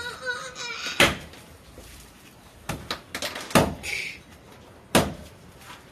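A heavy knife chopping into a coconut's fibrous husk as it sits on a wooden chopping block, to strip the husk off. About five sharp chops come at uneven intervals, the loudest about a second in.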